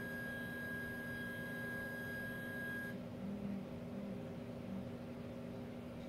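Electric motor spinning a ball-chain sculpture: a steady high whine over a low hum. The whine cuts off about three seconds in, leaving the hum and a few short, faint low tones as the spin slows.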